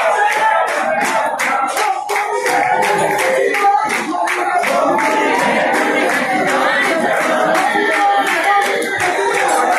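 A group of voices singing a devotional chant together, with hand-clapping throughout.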